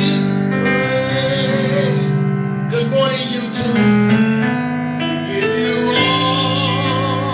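Gospel worship music: keyboard chords held and changing every second or two, under a singer holding long notes with vibrato.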